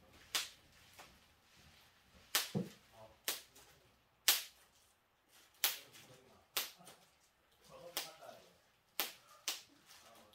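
Paint being flung from a brush onto the painting surface: a series of about ten sharp slapping snaps at irregular intervals.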